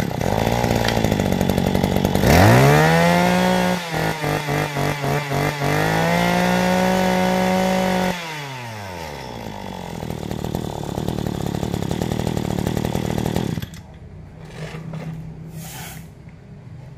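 Maruyama BIG-M KC2300B brush cutter engine catching and idling, then revved up. Its throttle is blipped rapidly about eight times, then held high before it drops back to idle. It goes much quieter near the end.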